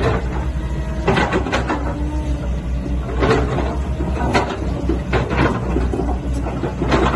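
Sany SY135C excavator's diesel engine running with a steady low throb while the boom, arm and bucket work, with several sharp clunks and creaks from the bucket linkage as it curls and moves.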